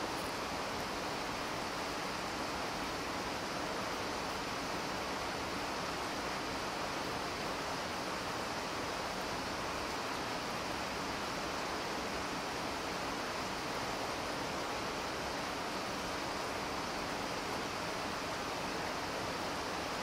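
Steady, even rushing noise with no pitch or rhythm that keeps the same level throughout.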